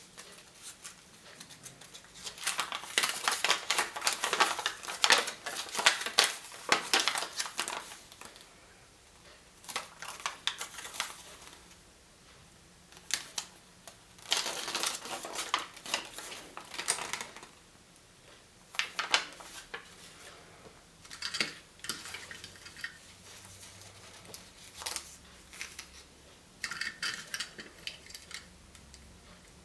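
Hands unwrapping and opening candy and toy surprise-egg packaging: crinkling wrappers and sharp plastic clicks and taps in several bursts, loudest in the first few seconds.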